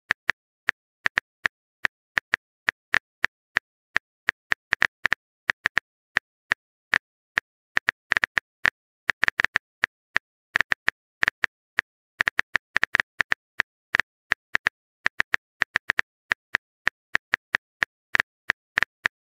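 Keyboard tap sound effect from a texting-story chat app: a short identical click for each letter typed, running unevenly at about four a second with brief pauses.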